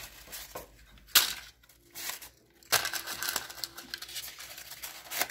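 Paper cupcake liners crinkling and rustling as they are peeled apart from a stack by hand, with one sharp tap about a second in.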